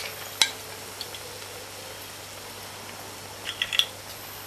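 Brown gravy simmering around fried fish in a pan, a faint steady bubbling hiss. A sharp click comes about half a second in, and a short cluster of clicks near the end.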